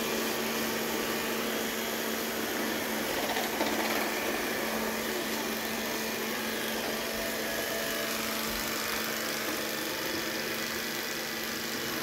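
Robot vacuum cleaner running as it moves along the floor: the steady whirr of its suction fan and brushes over a constant low hum.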